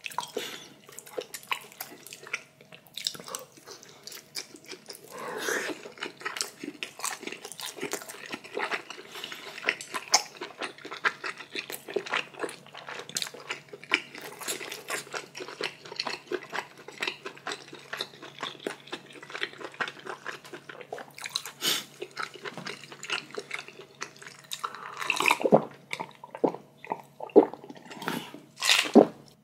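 Close-miked eating of spicy ramyeon noodles and dumplings: irregular chewing, slurping and wet mouth sounds with many sharp clicks, over a faint steady hum.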